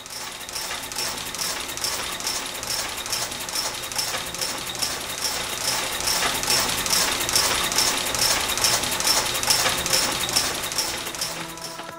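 Mechanical clattering of turning gears, a steady whirring rattle with a regular click about three times a second, fading in over the first second.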